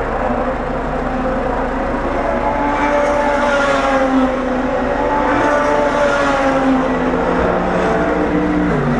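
Several Super GT race cars braking hard into a chicane and accelerating out, their engines overlapping and falling and rising in pitch through the gears.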